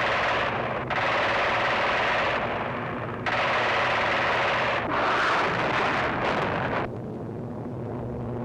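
Aircraft guns firing in several long, rapid bursts, each a second or two long and cutting off sharply, over a steady low hum, as heard on an old wartime film soundtrack.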